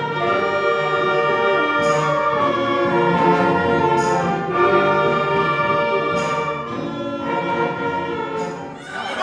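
Student concert band of woodwinds and brass playing held chords, with a sharp percussion hit about every two seconds; the sound drops away near the end.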